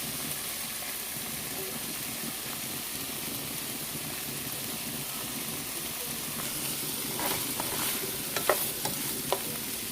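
Shrimp, green peas and bell pepper sizzling steadily in butter in a frying pan while being stir-fried. In the last few seconds a utensil clinks sharply against the pan several times.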